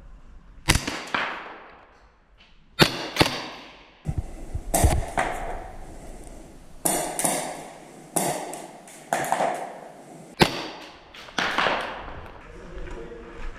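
Airsoft gunfire indoors: irregular sharp cracks of shots and BB hits, often in quick pairs, about one a second, each with a short echo.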